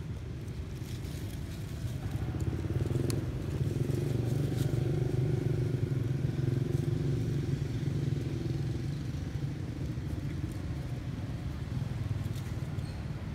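Low, steady engine hum of a motor vehicle running nearby. It swells about two seconds in and eases off toward the end.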